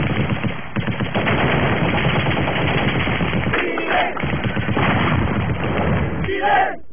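Sustained automatic gunfire, dense and continuous, with a brief shout about halfway through. Near the end the firing gives way to voices shouting.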